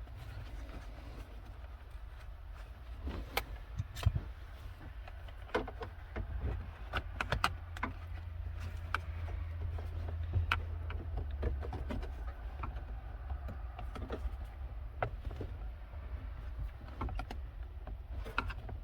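Plastic steering column covers being fitted back together and their clips snapped into place: scattered clicks and knocks of hard plastic, with a low steady hum underneath.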